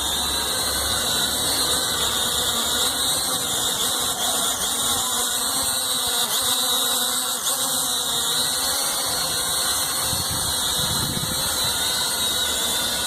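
Small high-speed electric motor running with a steady high-pitched whine.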